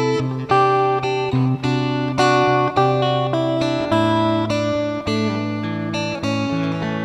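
Acoustic guitar music, with notes and chords plucked in a steady rhythm about twice a second over a held bass.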